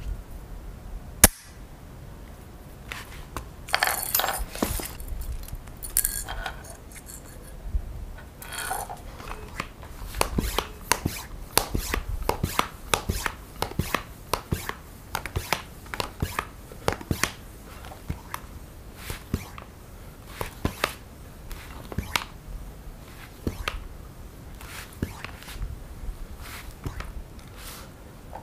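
Brass pipe fittings of a homemade PCP air rifle clicking and clinking as they are handled and coupled to an air hose. A sharp click about a second in, some scraping clatter after, then many irregular light ticks.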